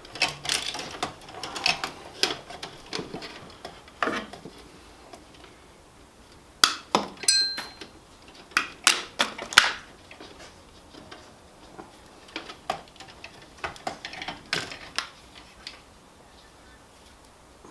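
Irregular metal clicks, knocks and clinks of tools and circuit breakers being handled at an open electrical sub panel, with one short metallic ring about seven seconds in.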